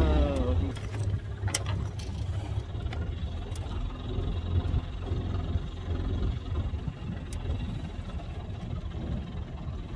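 1991 25 HP Mercury two-stroke outboard running steadily at low speed, with a light knock or two about a second and a half in.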